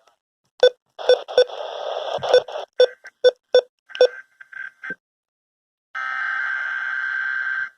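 Weather radio receiver audio: a run of short, sharp electronic bleeps and clicks, then a little under 2 seconds of steady warbling data tone. This is a SAME digital header burst, the coded signal that opens a NOAA Weather Radio Required Weekly Test.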